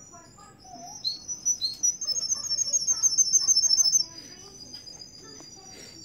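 Russian canary singing: high whistled notes and chirps that build, about two seconds in, into a loud, fast trill, which cuts off suddenly near the four-second mark, leaving a faint high note.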